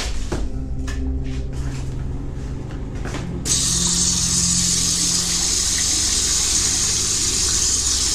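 Bathroom tap turned on about three and a half seconds in, water running steadily into the sink. Before that, a few short knocks over a low steady drone.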